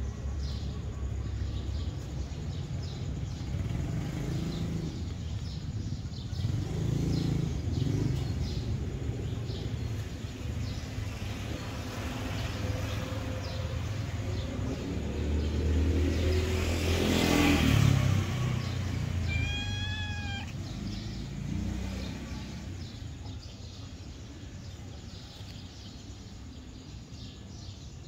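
Steady low traffic rumble, with a vehicle passing that swells and then fades about two-thirds of the way in. A cat meows once, briefly, just after.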